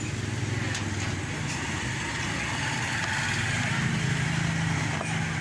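Toyota Corolla 'Big Body' car engine running steadily, its pitch and loudness rising a little about three seconds in.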